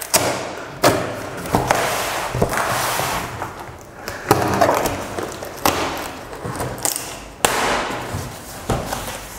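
A large cardboard box being opened by hand: packing tape ripped and pulled off the cardboard in several rasping tears, each starting sharply, with cardboard knocks in between.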